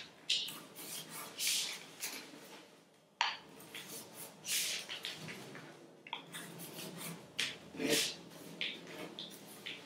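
Paper being folded and creased by hand: irregular rustling and crinkling, with a sharp crackle about three seconds in.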